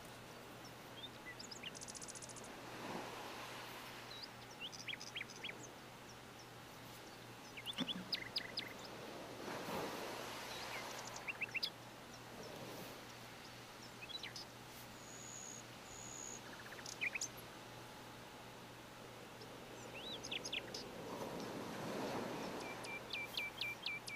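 Faint birds chirping in short series of quick high notes scattered throughout, over a low steady hum and a background hiss that swells and fades about three times.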